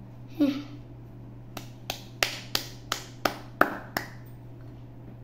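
A brief vocal sound, then eight sharp finger snaps in an even rhythm, about three a second, ending about four seconds in.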